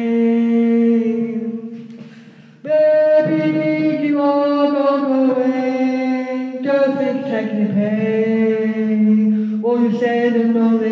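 A woman singing unaccompanied into a handheld microphone, holding long drawn-out notes. The first note fades away about two seconds in, and a new phrase starts with a louder note shortly after.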